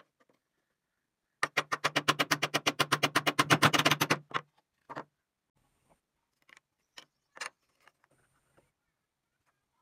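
Claw hammer tapping rapidly on a pin in a small wooden part, about ten light blows a second for nearly three seconds, followed by a few single knocks of wooden pieces handled on the workbench.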